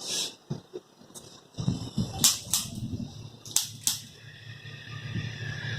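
Spring-loaded chiropractic adjusting instrument firing sharp clicks: one at the start, then two pairs about a third of a second apart, as thrusts to correct an anterior sacral base. Low rustling of handling and cloth runs under the later clicks.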